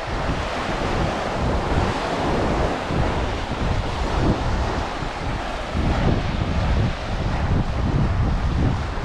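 Surf breaking and washing on a beach, with wind buffeting the microphone as a gusty low rumble.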